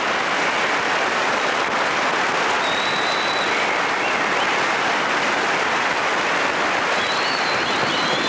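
Audience applauding steadily, with a few whistles about three seconds in and near the end.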